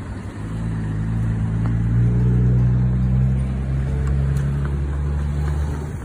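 A motor vehicle engine running close by: a low, steady hum that grows louder about two seconds in, holds, and drops away at the end.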